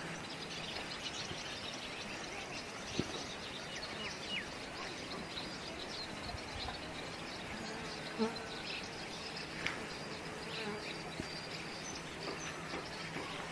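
Rural morning ambience: a steady buzz of insects such as flies or bees, with scattered faint short bird chirps.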